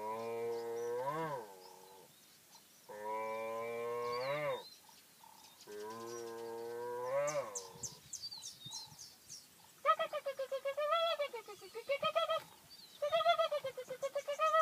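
A man's voice imitating animal calls: three long low calls, each rising in pitch at its end, then from about ten seconds in a quick run of higher, wavering calls.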